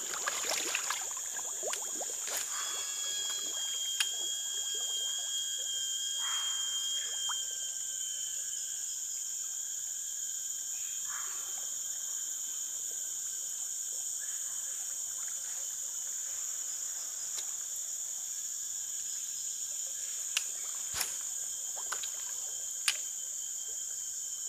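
Steady high-pitched drone of swamp-forest insects, with a second thinner whine that stops about nine seconds in. A few sharp clicks come near the end.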